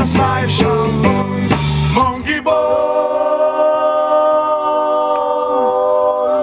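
Celtic rock band playing live: the full band with drums and bass for about two seconds, then the drums and bass drop out and a steady held chord rings on.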